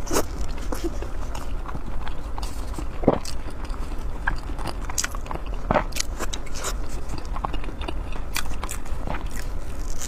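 Close-miked eating: a person biting and chewing food, a steady run of sharp clicks and crackles from the mouth, with a louder bite about three seconds in and another near six seconds.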